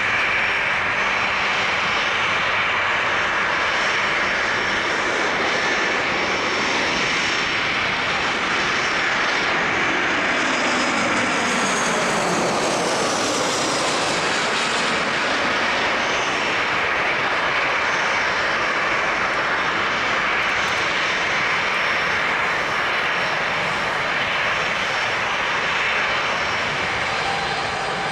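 Boeing 737-900 BBJ's twin CFM56-7B turbofan engines at low taxi power, a steady jet whine and rush. About halfway through, as the jet passes close by, the pitch of the whine sweeps down.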